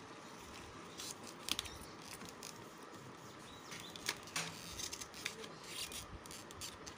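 Scattered small clicks, taps and scrapes of a circuit board being pressed down by hand onto double-sided tape inside a plastic TV back cover.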